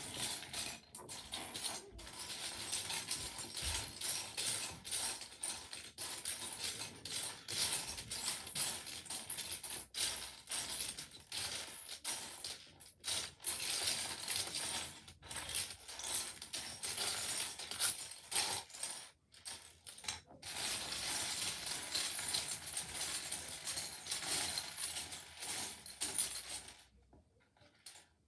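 Loose plastic Lego pieces clattering and clicking against each other as a hand rummages through a pile of them, without a break, stopping a little before the end.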